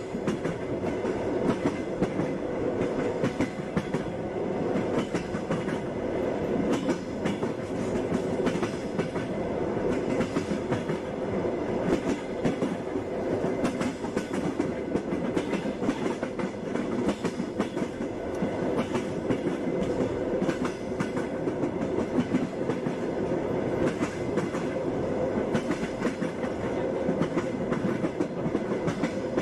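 Passenger train running steadily: the wheels clatter over the rail joints over a continuous rumble of the railway car.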